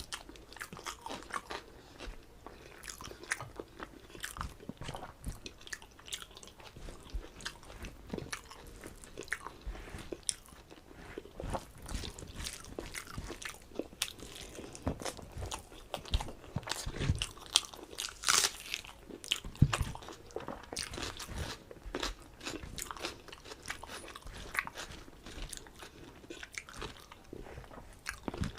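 Close-up eating sounds: a person chewing and biting food, with irregular wet clicks and crunches from the mouth.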